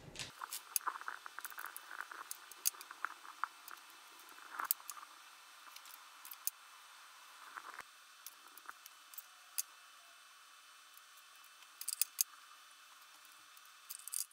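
Faint hand-work sounds of rolling sticky date balls in shredded coconut and setting them on a plate: scattered small clicks, ticks and light rustling, with a few sharper clicks near the end, where a spoon works in a glass bowl.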